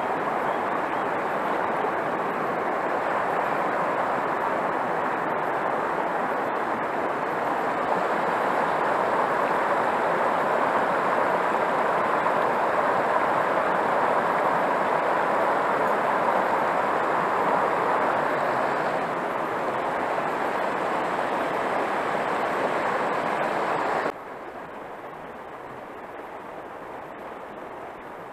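Steady rushing of river current flowing with foam close to the camera. Near the end it cuts suddenly to a much quieter, softer hiss of the water.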